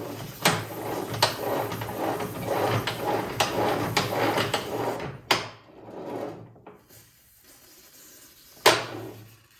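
Grease being applied to an MTD Yard Machines snowblower's dry drivetrain: a continuous hiss for about five seconds with a few knocks, then quieter handling and a single click near the end.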